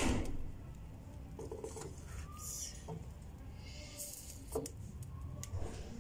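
A steel bowl being set down in a large aluminium pot, onto a metal stand resting on a bed of salt. Metal knocks and light scraping, with the loudest knock right at the start and another sharp knock about four and a half seconds in.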